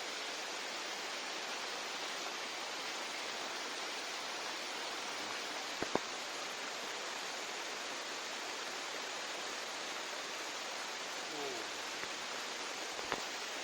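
Steady rain falling, a dense even hiss, with two short sharp knocks: one about six seconds in and one near the end.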